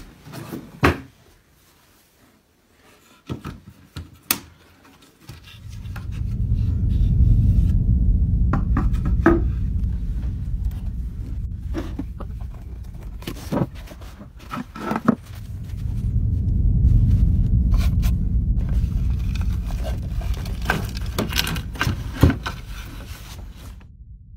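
Knocks and scrapes of a loose wooden floorboard being lifted and objects handled in the cavity beneath it. From about five seconds in, a deep low drone swells and fades twice under the knocks.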